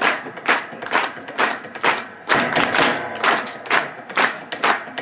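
Wooden sticks striking a hard-shell suitcase played as a drum: sharp knocks in an uneven rhythm, about two or three a second.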